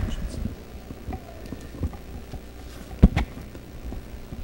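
Scattered knocks and thumps of people moving about and handling microphones and papers at the front of a church, with one loud thump about three seconds in.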